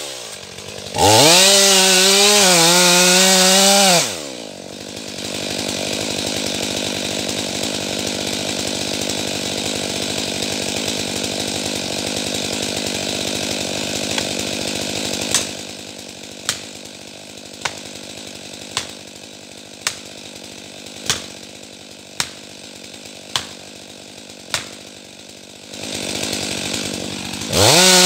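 Stihl MS 500i chainsaw revving up to full throttle, then dropping back to idle about four seconds in and idling. In the second half, nine sharp knocks come about a second apart over the idle, and the saw revs up to full throttle again near the end.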